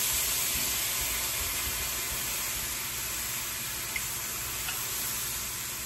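Red wine poured into a hot cast iron skillet, hissing and sizzling into steam as it deglazes the pan; the hiss slowly dies down.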